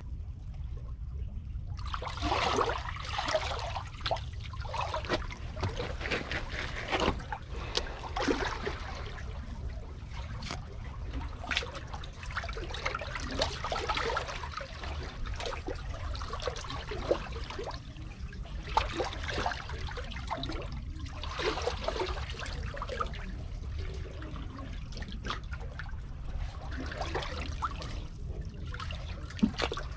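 Seawater surging and draining in the gaps between concrete tetrapod blocks, sloshing and trickling in irregular surges a few seconds apart over a steady low rumble.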